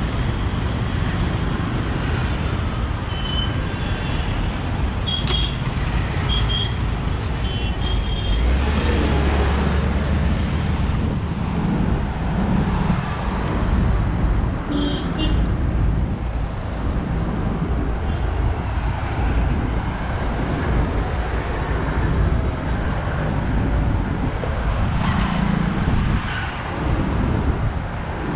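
Steady road traffic, with cars and other motor vehicles passing close by on a multi-lane city road. The engine and tyre noise makes a continuous rumble, and a few brief high tones sound in the first several seconds and again about halfway.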